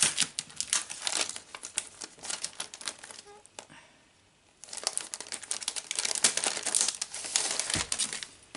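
Packaging of a craft die set crinkling and rustling as the die is taken out, in two spells with a short pause about halfway through, and a soft bump near the end.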